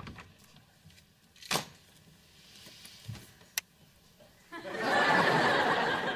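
Studio audience laughing, loudest thing here, starting about four and a half seconds in. Before it, the room is quiet but for a soft knock and the sharp click of a floor lamp being switched on.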